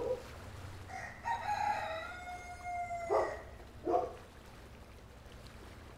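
A long drawn-out animal call lasting about two seconds, its pitch held steady and then dropping at the end, followed by two short calls.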